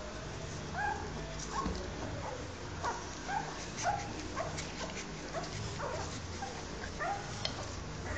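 Newborn rottweiler puppies giving short, high squeaks and whimpers, about one or two a second.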